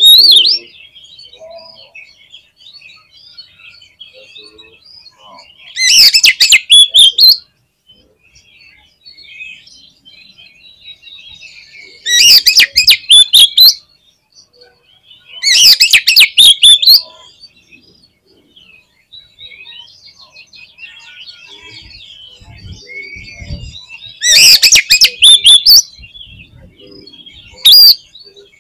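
Oriental magpie-robin (kacer) singing: soft warbled phrases, broken five times by loud bursts of rapid, harsh chattering about a second and a half long.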